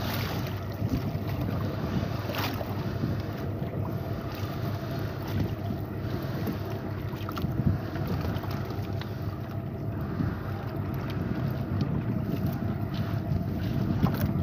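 Wind buffeting the microphone on a small outrigger fishing boat at sea, with water noise underneath, while a gill net is hauled in by hand. A few short knocks stand out, about two and a half and seven and a half seconds in and again near the end.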